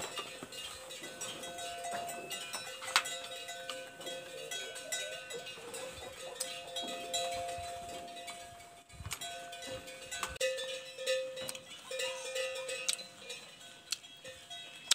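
Bells hung on water buffalo ringing on and off, with a sharp click about three seconds in.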